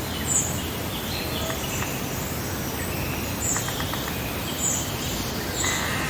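Outdoor summer meadow ambience: several birds chirping and singing over a steady background hiss, with a short high chirp repeating about once a second.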